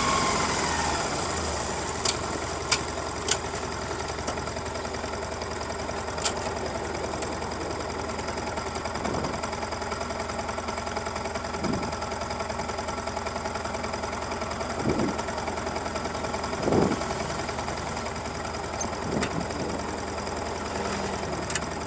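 Stock Yamaha MT-15's 155 cc single-cylinder four-stroke idling steadily through its factory exhaust, the revs falling to idle in the first second. A few light clicks in the first few seconds.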